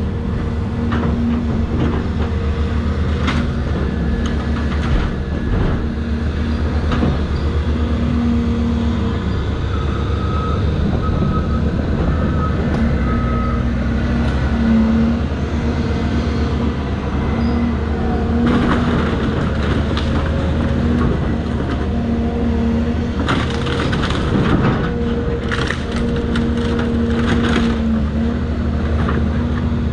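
Caterpillar 336 hydraulic excavator's diesel engine running steadily under load while debris cracks and crunches as it is broken up. The cracking comes in bunches about two-thirds of the way through and again near the end, and a few short beeps sound near the middle.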